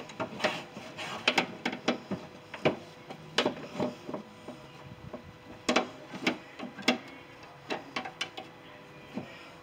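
Irregular clicks and knocks of hands and a screwdriver working inside the hollow sheet-metal rear cargo door of a Ford E350 van, fumbling to reconnect the power door-lock actuator's electrical connector.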